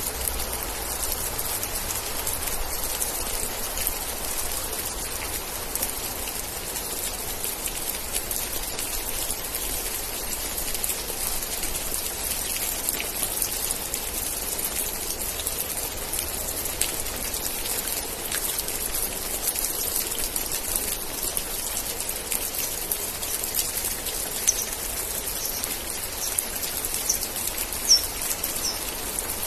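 Steady rain with a dense patter of drops, a few landing louder than the rest. In the last few seconds a string of short, high chirps sounds over the rain, about two a second.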